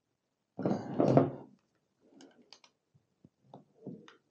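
Handling noise from a cloth being pulled over a wooden block on a wooden table: one rough scuffing rustle lasting about a second, then a few faint clicks and small knocks.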